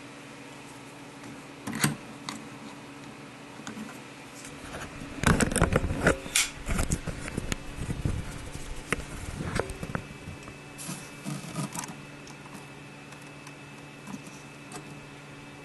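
Handling noise of a hand and camera working inside a delta 3D printer's clear plastic body: scattered clicks, knocks and scrapes, a brief knock about two seconds in and the busiest stretch from about five to eight seconds, over a steady hum.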